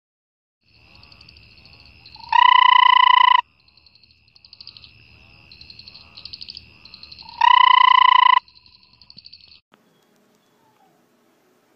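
A frog calls twice, each call a loud, steady tone about a second long, some five seconds apart. Behind it runs a night chorus of high trilling calls.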